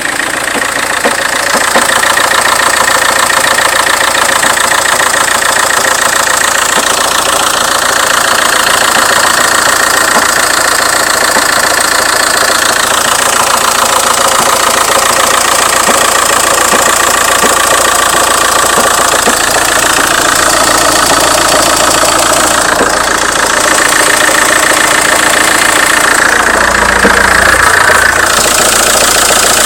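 High-mileage Opel Vectra C's 1.9 CDTI (Z19DT) diesel engine idling, with a conspicuous, steady knocking coming from the engine bay.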